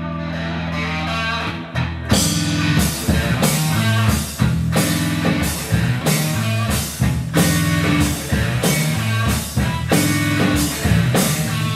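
Live rock band playing an instrumental intro: a held chord rings for about two seconds, then the drum kit, electric guitar and bass guitar come in together with a steady beat.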